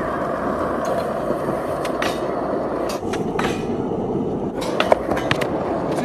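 Skateboard wheels rolling on concrete with a steady rumble, broken by several sharp clacks of the board and a louder knock about five seconds in.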